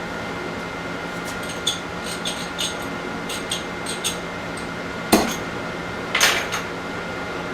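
Light metallic clinks and taps as steel clamp parts and tools are handled, then a heavier knock about five seconds in and a short rattling clatter a second later. A fan hums steadily underneath.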